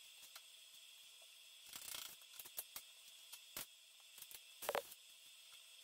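Short MIG tack welds on a steel post: a brief crackle about two seconds in and another near the end, with scattered sharp clicks between them.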